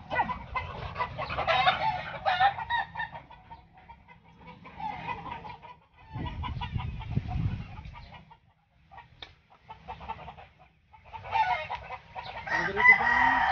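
Domestic chickens clucking in bursts, with short pauses between.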